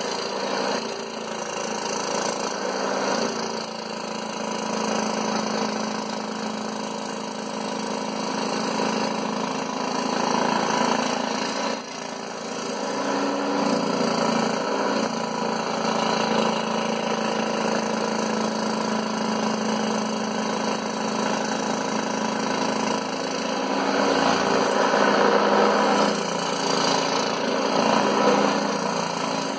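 Scroll saw running steadily, its reciprocating blade cutting through MDF, a little louder for a few seconds near the end.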